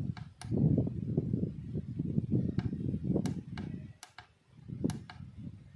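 Push-buttons on a digital timer switch being pressed: several sharp clicks spread through, over a low rumbling noise that eases off about four seconds in.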